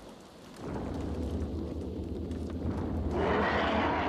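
Film sound effect of a deep rumble, joined about three seconds in by a louder, rough roar: the sound of more prehistoric creatures approaching through the jungle.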